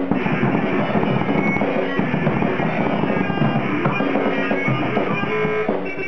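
Live band playing: a drum kit is hit busily under held, droning pitched tones from the other instruments.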